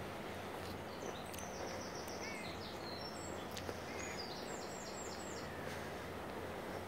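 A small songbird singing: two quick runs of high repeated notes, one about a second in and another about four seconds in, over a steady outdoor background hiss.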